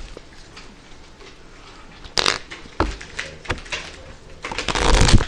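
A deck of playing cards being riffle-shuffled: a short riffle about two seconds in, a few taps of the cards, then a longer riffle that is loudest near the end.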